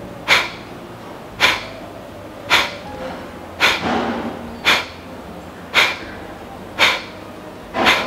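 Kapalbhati breathing: a rhythmic series of sharp, forceful exhalations through the nose, about one a second, each a short puff of breath. It is one round of kapalbhati pumping.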